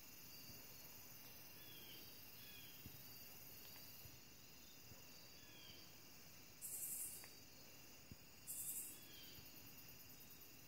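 Faint outdoor ambience with insects chirping softly and sparsely. Two brief, high-pitched, pulsing buzzes come in quick succession past the middle.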